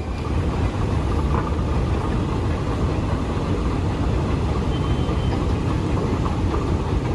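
Steady low rumble of a Boeing 737 MAX 8's jet engines and airframe heard inside the cabin, typical of an airliner on the ground before take-off.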